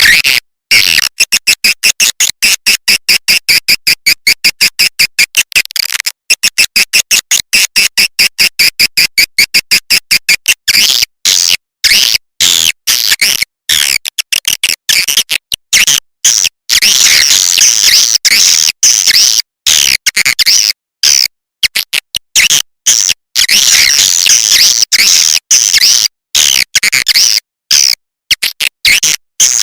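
Swiftlet lure call: shrill, rapid twittering and chirping of swiftlets, chopped into quick pulses with sharp silent gaps between them. The pulses speed up about six seconds in, then give way to longer, denser bursts of twittering. This is an edited call track of the kind played to attract swiftlets into a nesting house.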